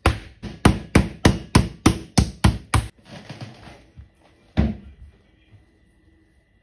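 Wooden meat mallet pounding turkey breast through cling film on a wooden cutting board: about ten sharp blows at about three a second, stopping after about three seconds. A brief rustle follows, then a single knock.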